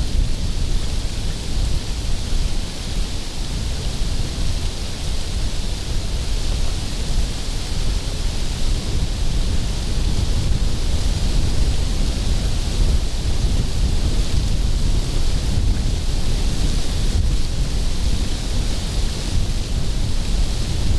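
Steady wind noise on the microphone: a deep rumble with a rushing hiss above it, unbroken throughout.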